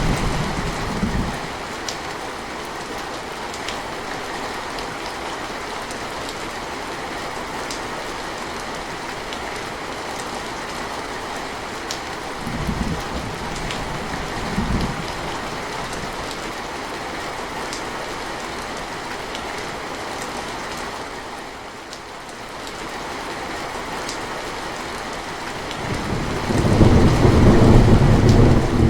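Steady rainfall with scattered drips. A roll of thunder fades out about a second in, two short low rumbles come near the middle, and a louder thunder rumble builds near the end.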